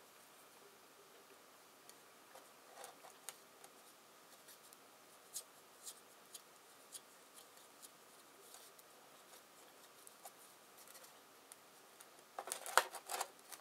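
Small parts of a clockwork model-engine starter being handled while grease is spread on them: faint, scattered light clicks and taps, with a quick run of sharper clicks about a second before the end.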